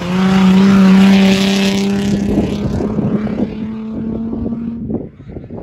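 A Nissan Patrol rally 4x4 drives past close by under power, its engine running loud and steady. The engine is loudest for the first two seconds, then weakens as it moves off and fades out about five seconds in.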